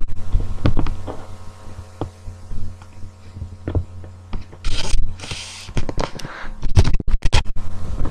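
Steady low electrical hum with scraping, rustling and knocking close to the microphone, and two short loud rushes of noise about five seconds in.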